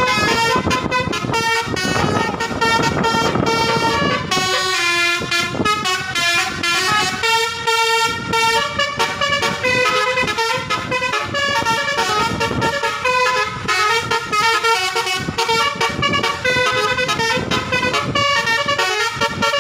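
Basuri telolet multi-tone vehicle horn driven by a tune module, playing a fast melody of quickly changing horn notes.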